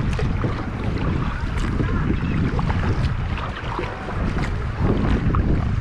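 Wind buffeting the microphone in a heavy low rumble, with choppy waves splashing and lapping against a sit-on-top kayak and its paddle as it is paddled through rough water.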